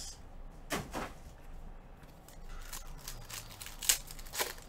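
Trading-card packs and foil wrappers being handled: scattered rustles and light crackles, a couple of louder ones about a second in and near the end.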